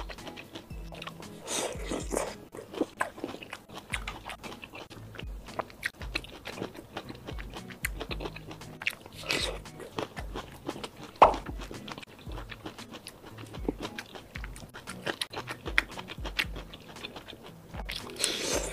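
Close-miked eating of red-oil-soaked shrimp and broccoli: biting and chewing with many small mouth clicks and smacks, and one sharper click about eleven seconds in. Background music with a steady low beat plays underneath.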